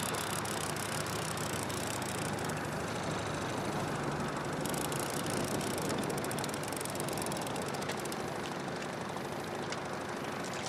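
Evinrude outboard motor running steadily at low speed, a constant low hum with a faint rapid ticking over it at times.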